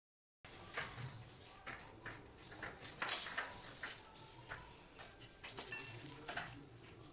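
Irregular metallic clicks, knocks and clinks of hand tools on bicycle parts as a bicycle's rear wheel is loosened and detached, some strikes leaving a brief ring.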